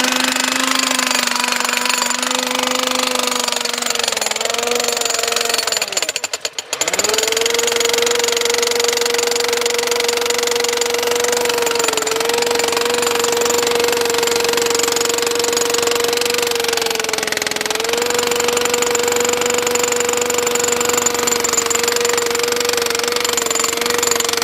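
Powered demolition hammer breaking into very hard concrete, its motor running at a steady pitch with a dense hammering rattle. It stops briefly about six seconds in, restarts, sags in pitch twice under load, and cuts off near the end.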